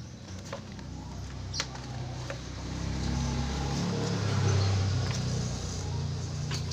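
A motor vehicle's engine rumble swelling to a peak a little past the middle and then easing off, as it passes by; a few sharp clicks sound in the first two seconds.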